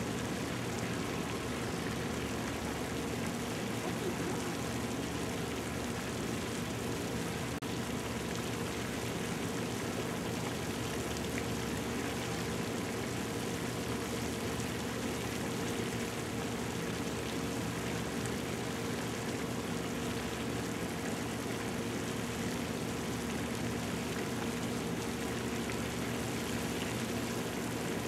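Steady rushing noise with a low, even hum under it, unchanging throughout.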